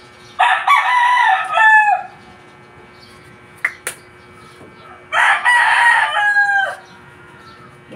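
A rooster crowing twice, each crow about a second and a half long and trailing off in pitch at the end, with a couple of short sharp clicks in between.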